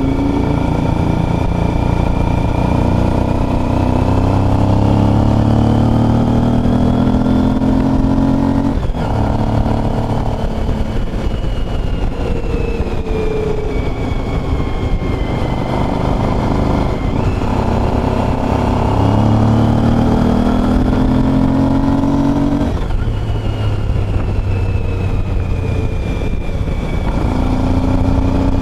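Motorcycle engine pulling under way, heard from a camera mounted on the bike with wind rush underneath. Its pitch climbs steadily as it accelerates, then drops sharply at a gear change about nine seconds in and again about twenty-three seconds in before climbing once more.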